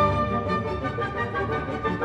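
Instrumental background music: held notes layered over a quick, even pulse.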